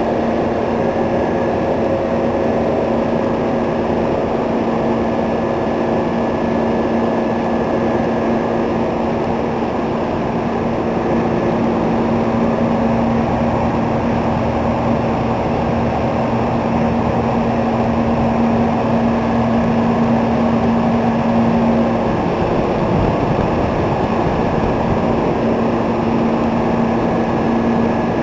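Older three-phase commercial refrigeration compressors and their condenser fans running together: a loud, steady drone with a steady hum that drops out for a moment near the end.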